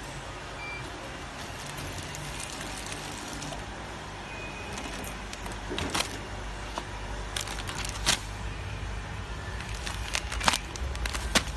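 Small automatic granule packing machine running with a steady low motor hum. Irregular sharp clacks come from its sealing and cutting mechanism in the second half. Near the end a filled plastic sachet is handled, adding a few quick clicks and rustles.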